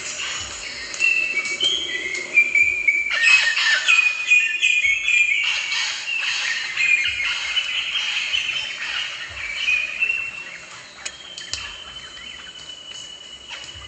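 Rosellas calling: a busy run of short whistled notes and sharp chattering chirps, loudest through the first two-thirds. Near the end the calls thin out and a steady high tone carries on.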